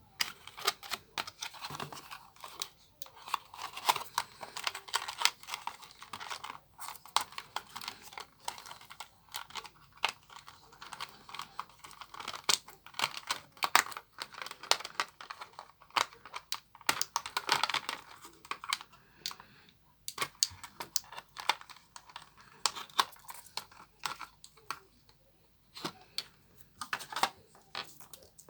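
Hands handling earphone packaging: a dense run of irregular clicks with crinkling and tearing, pausing briefly twice.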